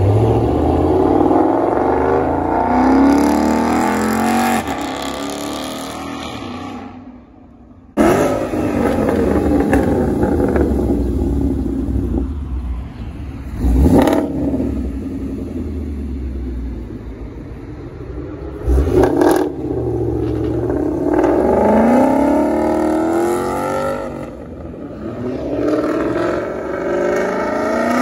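Supercharged V8 of a Dodge Challenger Hellcat Redeye running loud, revving and accelerating, its pitch rising and falling in repeated sweeps. The sound breaks off abruptly about a third of the way in, and there are a couple of short sharp bangs midway.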